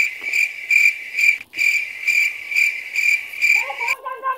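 Insect chirping, cricket-like: one shrill note repeated evenly at about two and a half chirps a second, loud and steady, cutting off abruptly near the end.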